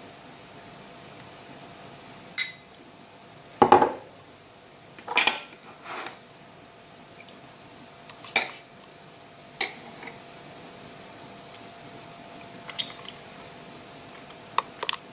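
Knife and fork clinking and knocking against a plate while a baked salmon steak is cut: about eight separate clinks spread out, one of them a few seconds in ringing briefly.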